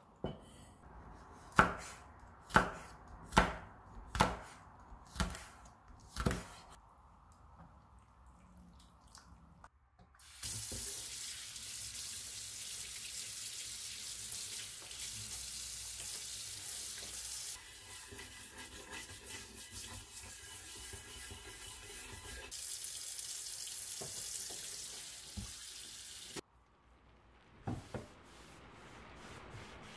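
Six sharp knocks, about one a second, then a kitchen tap running onto a bamboo cutting board and a knife in a stainless steel sink. The flow shifts twice before the tap is shut off suddenly, and a short knock follows near the end.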